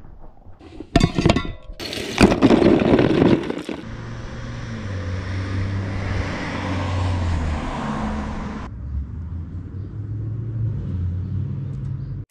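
An aluminium soda can cracked open with a sharp snap and a short loud fizz, followed by a steady low rumble with a hiss over it; the hiss cuts off abruptly about two-thirds of the way in while the rumble goes on.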